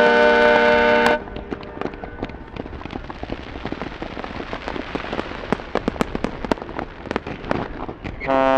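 The Disney Treasure's musical ship horn sounding a chord of several notes, which cuts off about a second in. A stretch of scattered sharp pops and crackles follows, and the horn chord sounds again near the end.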